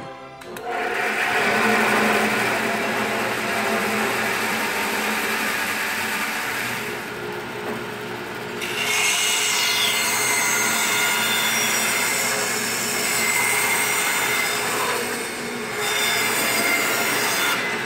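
Restored 1948 Walker-Turner 16-inch band saw starting up about half a second in, its belt-driven electric motor and blade running steadily. From about nine seconds in, the blade cuts a wooden board, adding a hissing sawing noise that eases briefly near fifteen seconds and then resumes.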